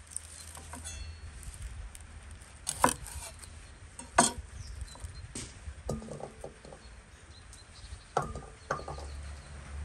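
Garlic bulb being broken into cloves and peeled by hand on a wooden cutting board: sharp snaps and knocks, the loudest about three and four seconds in, with the rustle of papery skins between.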